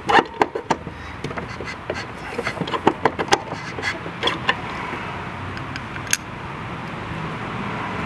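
Quick metallic clicks and knocks of mower drive parts being handled, as a spacer that won't line up is worked into place, most of them in the first four or five seconds and one more about six seconds in. A steady background hum runs underneath.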